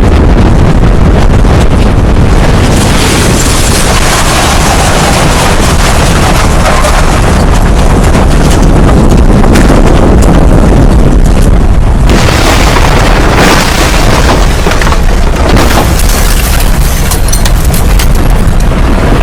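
Tornado wind roaring over a microphone: a loud, continuous rush with a deep rumble. From about twelve seconds in it carries more sharp crackles.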